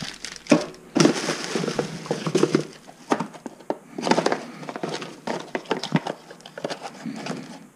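Plastic bags and air-pillow packing crinkling and rustling in a cardboard shipping box as car parts are unwrapped and dug out, in irregular crackly bursts.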